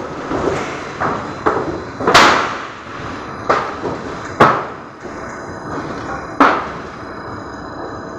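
Plate-rolling machine under test, making sharp bangs and clanks at uneven intervals, about seven in all, the loudest about two seconds in, over a steady running noise.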